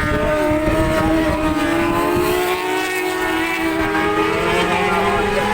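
Racing superbike engines running hard, several bikes heard at once, with one engine note rising steadily through the middle as a bike accelerates. Wind rumbles on the microphone underneath.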